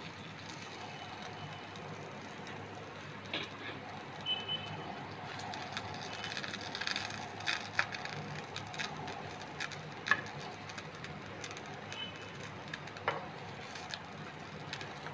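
Bread sandwiches shallow-frying in a little oil in a nonstick frying pan: a steady low sizzle, with sharp clicks and taps now and then as a metal spoon turns them over.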